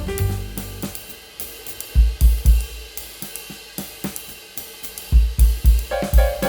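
Background music: a drum-kit break with hi-hat and cymbals ticking and clusters of heavy bass-drum hits, the melody dropping out and coming back in near the end.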